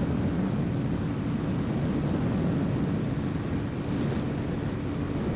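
Motorcycle engine held at full throttle at high road speed, a steady drone with wind rushing over the microphone.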